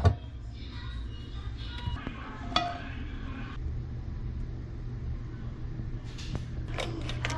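A few light clinks of kitchen dishes and utensils being handled, over a steady low hum.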